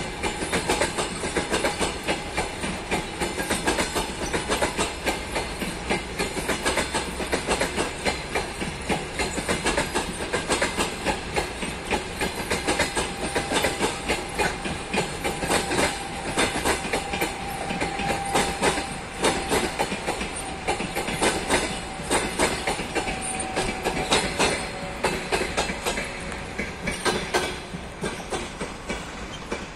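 Passenger coaches of a departing train rolling past, their wheels clattering over rail joints in a quick, steady clickety-clack that eases slightly near the end as the last coach goes by.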